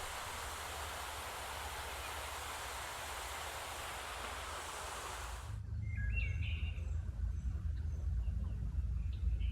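A steady, even rushing hiss that cuts off abruptly about five and a half seconds in. It gives way to quieter outdoor ambience: a low rumble with small birds chirping a few times.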